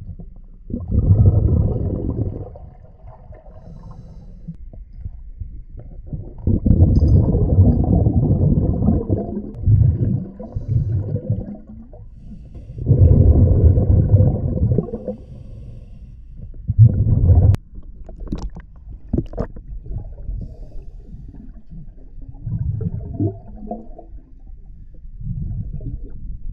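Scuba diver breathing through a regulator, heard underwater: a rush of exhaled bubbles every few seconds, with quieter gaps between breaths. One sharp click comes about two-thirds of the way through.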